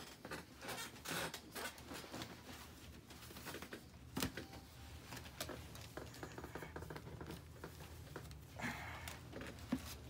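Scattered soft rustles and handling noises from plastic-bagged boots, tissue paper and socks being handled, with one sharp knock about four seconds in.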